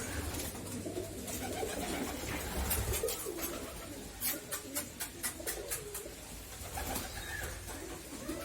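Several pigeons cooing together in low, wavering calls, with a quick run of sharp clicks about halfway through.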